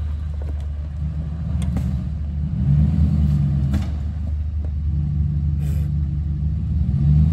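Ram 1500 pickup's engine running at low revs as the truck crawls along an off-road trail, a steady low rumble that swells a few times as throttle is added.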